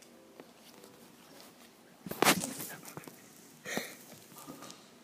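A dog pushing its head up close to the camera: two sudden, short, noisy sounds right at the microphone, a loud one about two seconds in and a shorter one just before four seconds.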